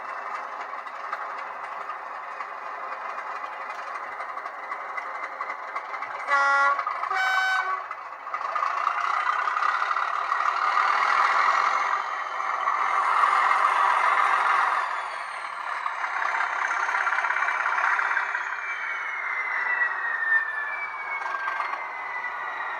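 Class 37 diesel sound played by the DCC sound decoder in an N gauge Graham Farish model: the engine idling, a two-tone horn about six seconds in, then the engine powering up with a whistle that rises, holds and slowly falls away as it runs back down.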